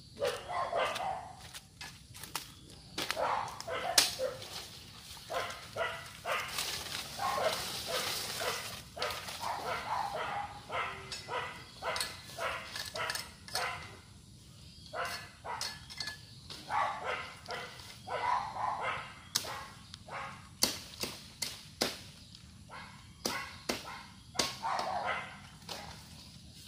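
A blade chopping at bamboo: irregular sharp knocks, at times several in quick succession.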